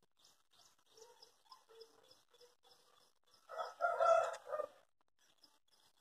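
A rooster crowing once, starting about three and a half seconds in and lasting just over a second.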